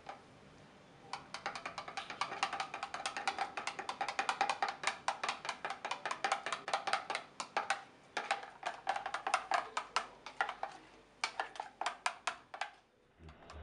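A spoon stirring curry powder into liquid in a plastic measuring jug, clicking rapidly against the jug's sides, about six clicks a second, with two short breaks before it stops near the end.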